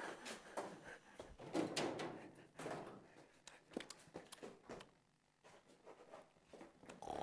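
Faint scattered knocks and rustling of someone moving about, with a short near-silent gap just past the middle.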